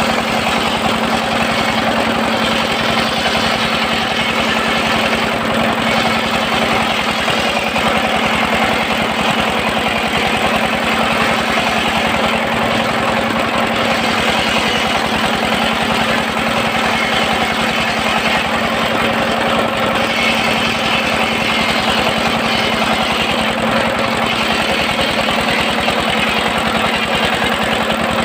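Engine driving a circular-saw sawmill, running steadily at an even speed with a constant hum.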